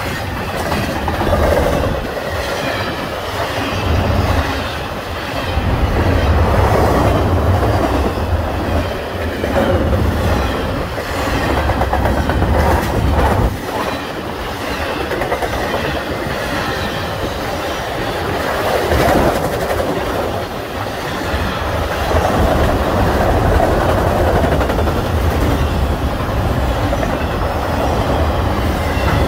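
Freight train rolling past close by: double-stack container well cars and then autorack cars, with a steady rumble that swells and dips and the wheels clicking over the rail joints.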